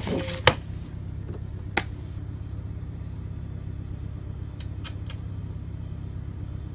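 Steady low hum of kitchen machinery, with a short rustle and a sharp clack about half a second in, another clack near two seconds, and three quick clicks a little before five seconds, as things are handled and set down.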